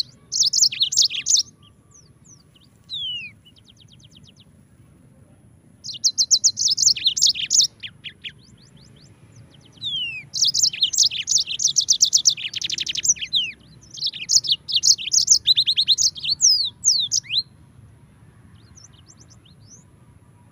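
Yellow-fronted canary (Mozambique canary) singing: bursts of rapid high trills and quick downward-sliding notes, in phrases of one to three seconds with short pauses between them. The song stops about three seconds before the end, leaving only a few faint notes.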